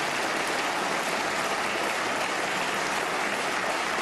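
Steady, sustained applause from a large crowd of members of parliament clapping.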